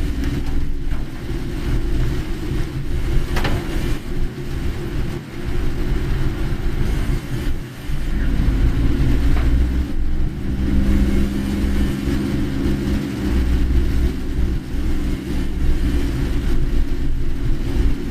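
Car interior noise while driving: a steady low rumble of engine and tyres, with an engine note that comes through more clearly partway through.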